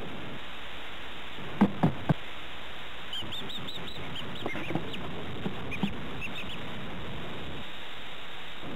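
Three dull knocks about a second and a half in, then young birds peeping in a quick run of high chirps, with scattered peeps and small clicks after it, over steady tape hiss.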